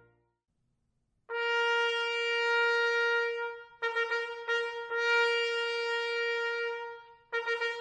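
After about a second of silence, a trumpet plays a long held high note, breaks and re-attacks the same note twice, and starts a new phrase near the end. The notes die away quickly with little reverberation, in a hall built for dry, living-room-like acoustics.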